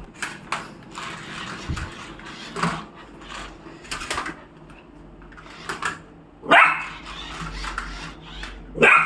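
A dog barking in short bursts, harder twice near the end, as it fights a small automatic toy car.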